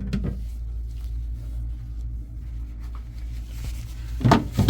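A steady low hum, with a short clatter of knocks and bumps near the end.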